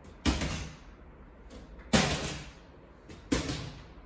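Plastic drink bottles, two small and one large, being knocked over one at a time onto a hard floor: three separate clattering hits, shortly after the start, about two seconds in and near the end, the middle one the loudest, each dying away briefly.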